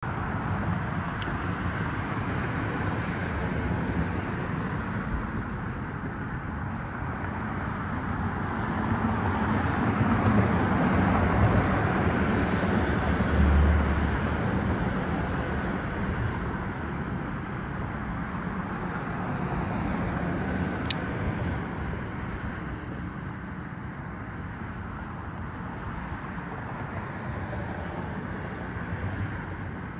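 Steady outdoor background noise of road traffic, swelling and fading as vehicles pass, with two brief sharp clicks, one about a second in and one about two-thirds of the way through.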